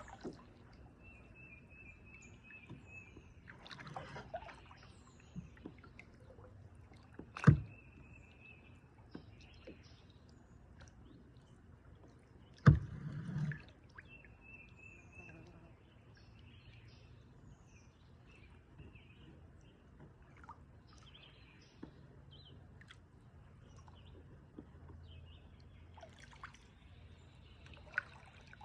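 Kayak paddling: water sloshing and dripping off the paddle, with two sharp knocks about five seconds apart. A bird's high trill sounds three times.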